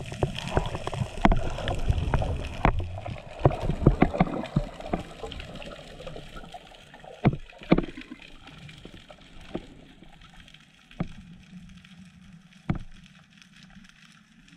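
Underwater noise of a freediver descending with a speargun: water rushing and sloshing past the gear with many sharp clicks and knocks for the first few seconds. It then settles to a quieter wash with a few separate clicks.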